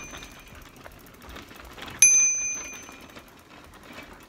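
A small bell dings once about two seconds in, each ding a bright metallic ring that fades over about a second, like a bicycle bell rung by a child. The fading ring of the ding before it trails off at the start.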